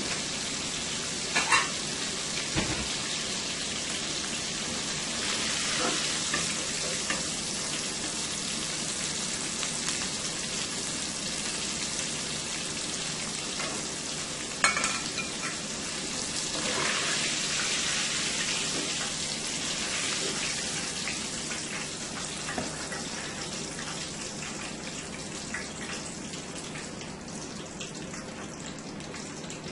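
Breaded shrimp deep-frying in a pot of hot oil, a steady sizzle, while a slotted spoon lifts the pieces out. A couple of sharp knocks of the spoon against the pot come about a second and a half in and again midway. The sizzle gets quieter toward the end.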